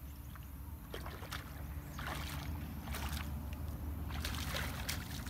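Feet wading through shallow muddy pond water: splashes and sloshes with each step, over a low steady rumble.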